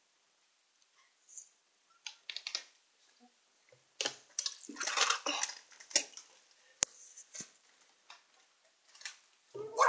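A person spitting and spluttering wet mouthfuls of chewed marshmallow into a plastic bowl, in short irregular wet bursts, with a single sharp click about seven seconds in.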